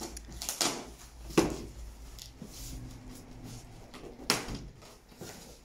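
A large cardboard carton being opened by hand, its top flaps scraping and rustling as they are worked loose and lifted. There are a few sharp cardboard snaps, the loudest about a second and a half in and another about four seconds in.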